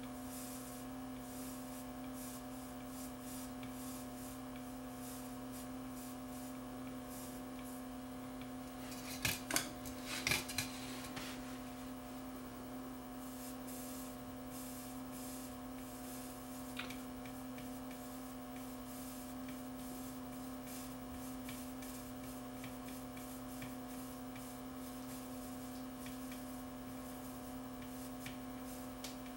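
Steady electrical mains hum from the bench equipment, with a short run of light scraping and clicks about a third of the way in as a soldering iron tip is worked against a chip's pins on a circuit board, and one small click later.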